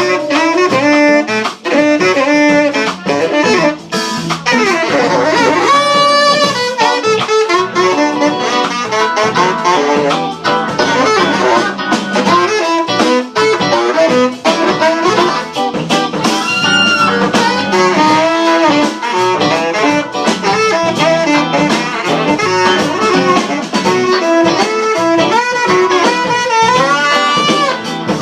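Live jazz band with a saxophone solo over guitar accompaniment, playing a fast run of notes.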